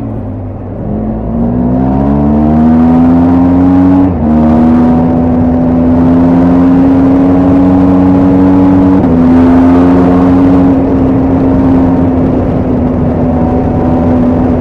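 BMW R1250GS Adventure's boxer-twin engine and exhaust under way. The revs climb, there are quick gear changes about four seconds in and again about nine seconds in, and the bike then holds a steady cruise, easing slightly near the end.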